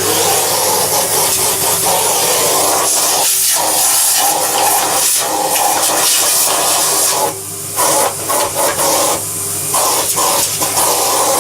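An electric motor driving a strong, steady rush of air, switched on abruptly, with a low mains hum beneath it; the airflow dips briefly a couple of times about two-thirds of the way through.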